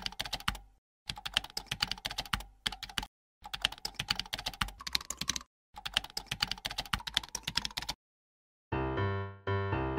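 Keyboard typing sound effect: rapid clicks in four runs with short pauses between them, stopping about eight seconds in. Music begins shortly before the end.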